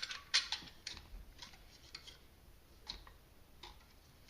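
Small, sharp clicks and clinks from 350 A Anderson-style connector parts being handled: tinned copper terminals and plastic housings. The clicks come several in quick succession in the first second, then more sparsely.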